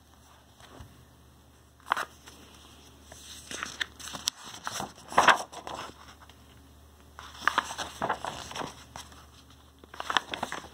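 Paper pages of a picture book being handled and turned: crisp rustling and flapping in several bursts, loudest about five seconds in.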